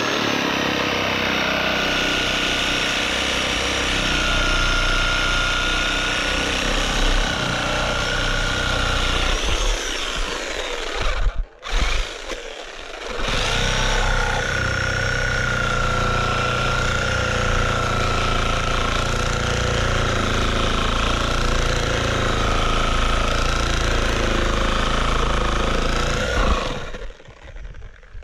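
Corded Chicago Electric reciprocating saw with a metal-cutting blade running and cutting through the nails between two nailed boards, with a steady whine over the rattle of the blade. It stops for about two seconds around eleven seconds in, then runs again and stops near the end.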